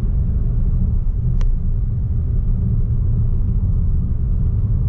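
Steady low road and engine rumble heard from inside the cabin of a moving Fiat Mobi, with one brief sharp click about a second and a half in.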